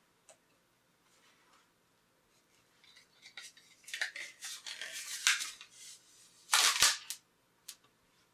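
Scratchy rustling and scraping of a freshly 3D-printed plastic sign being handled and picked at by hand, starting a few seconds in, with a louder, brief scrape a little before the end.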